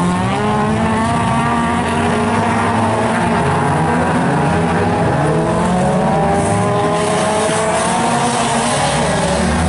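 A pack of Folcar racing cars running together, several engines revving and changing gear, their notes rising and falling over one another.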